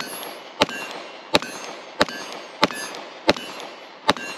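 Sig Sauer P365XL 9mm striker-fired pistol firing a steady string of seven shots, about one every two-thirds of a second. The last shot comes about four seconds in.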